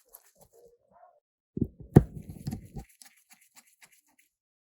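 Handling noise from small parts and tools being worked on a bench: light ticks, then a brief low rumbling knock with a sharp click in it about one and a half seconds in, with a faint wavering whine near the start.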